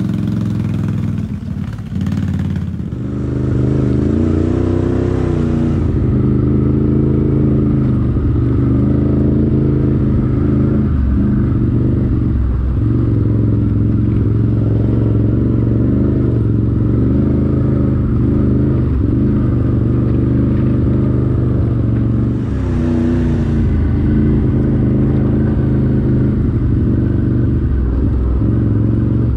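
Can-Am Outlander 850 ATV's V-twin engine running at trail speed, its revs rising and easing off again and again over rough ground.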